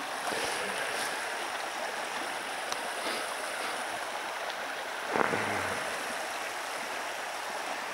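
Small taiga river rushing steadily over a riffle and around a fallen tree lying across it, with a brief low sound about five seconds in.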